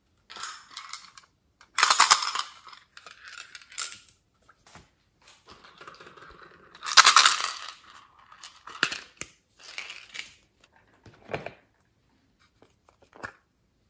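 Small plastic toy containers clicking and being handled, with beads and glitter rattling as they are shaken out. There are two louder rattling bursts, about two and seven seconds in.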